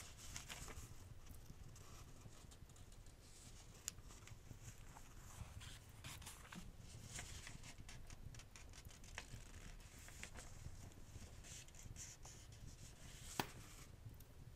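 Faint fireplace crackling: scattered small snaps and soft hissing over a low steady rumble, with a sharper pop about four seconds in and another near the end.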